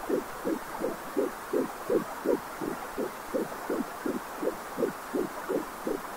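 Angelsound home fetal Doppler picking up an 11-week fetus's heartbeat: quick, even whooshing beats nearly three a second, about 168 beats a minute, over a steady hiss.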